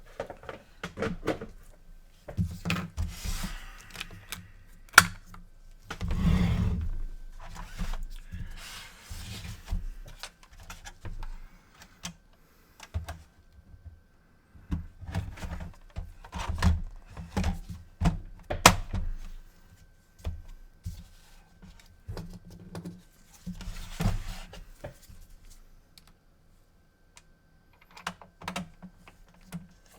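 Hands working on an opened PlayStation 4 console: irregular clicks, taps and thunks of plastic parts and tools being handled, with a few short scraping or rustling noises.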